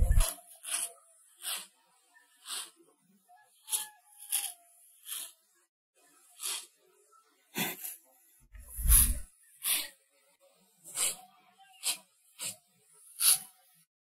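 Praying mantis hissing in short, dry rasps, roughly one a second at irregular intervals. A low thump comes at the start and another about nine seconds in.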